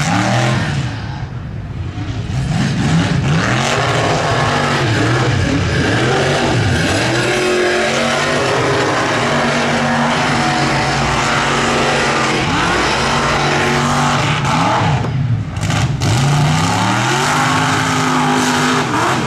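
Mega mud truck's engine running at full throttle as it races through mud, the revs climbing and falling again and again. The revs drop off briefly about fifteen seconds in, then climb once more.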